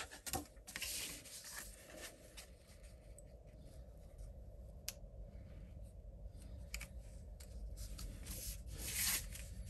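Hands rubbing and pressing a glued paper panel onto a cardstock card base: faint paper rustling and rubbing, with a light click about five seconds in.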